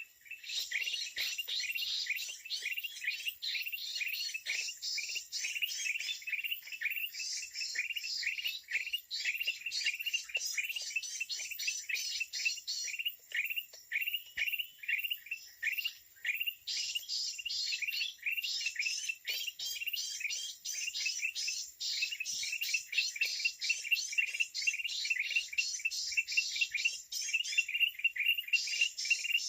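Dense bird chirping: a fast, steady run of short, downward-sliding chirps, several a second, with higher twittering layered over it in stretches that drop out now and then.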